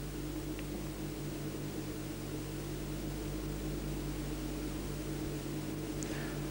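A steady low hum with a hiss underneath, even throughout, with no distinct events.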